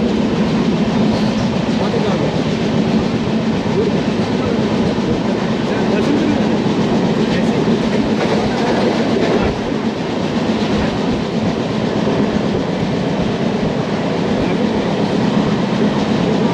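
Express passenger train running along the track, heard from on board a general coach: a steady, loud rumble of the moving train.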